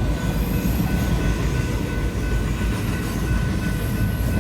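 Union Pacific intermodal freight train rolling through a grade crossing, a steady low rumble of wheels and cars with a thin, steady high tone above it.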